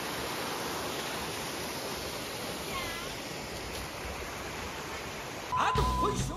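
Shallow mountain stream running over a stony bed, a steady even rush of water, with a faint short chirp about three seconds in. Background music comes in near the end.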